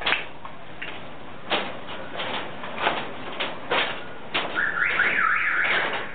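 Sharp knocks at irregular intervals, about one every half-second to second. From about four and a half seconds in comes a wavering high-pitched squeal or whine lasting over a second.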